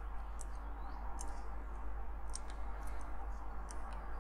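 Small, light clicks of the die-cast metal and plastic parts of a Corgi Cooper Maserati model car chassis being handled and eased apart by fingers. There are about half a dozen scattered clicks over a low steady hum.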